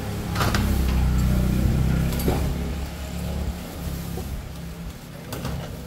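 A motor vehicle's engine running with a low, steady hum, loudest for the first three seconds and then fading. A few short clinks are heard over it.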